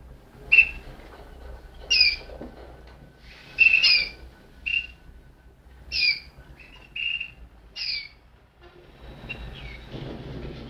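Malinois (Waterslager) song canary giving short, sharp chirps, quick falling notes repeated every second or two. A low rumbling noise comes in near the end.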